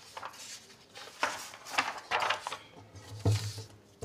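Sheets of a printed paper being leafed through and handled, with a few brief rustles.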